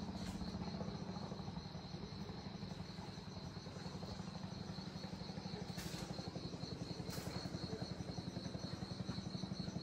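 Insects trilling steadily at a high, even pitch, over a low, rapidly pulsing hum.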